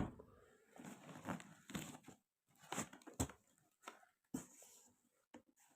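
Faint, scattered rustles and light clicks of plastic packaging and small plastic toy kitchen pieces being handled and unpacked.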